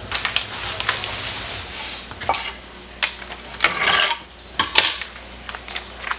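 Kitchen utensils and dishes clinking and knocking on the countertop during food prep, with scattered sharp clicks and a crinkly rustle, like plastic packaging being handled, about four seconds in.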